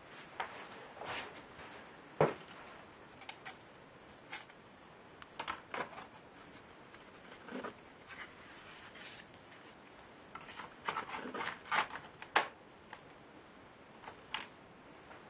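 Laptop parts being handled by hand: scattered light clicks and taps of plastic and small metal parts with some rubbing, two sharper knocks about 2 s and about 12 s in, and a quick run of clicks just before the second knock.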